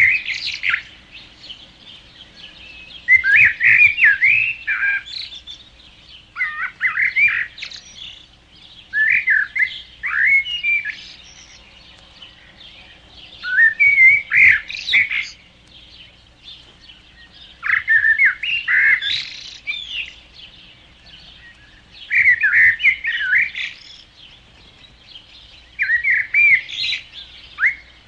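Songbird singing short phrases of quick, curving whistled notes. A phrase of one to two seconds comes about every four seconds, with quiet gaps between.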